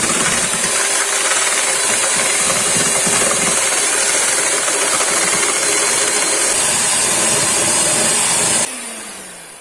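Arno electric hand mixer running steadily, its beaters whipping egg whites in a stainless steel bowl toward stiff peaks. Near the end the motor is switched off and its hum falls in pitch as it slows down.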